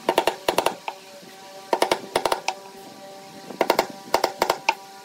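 Hammer driving small nails into a pine strip: quick groups of sharp taps about every two seconds, one nail after another, over background music with steady held notes.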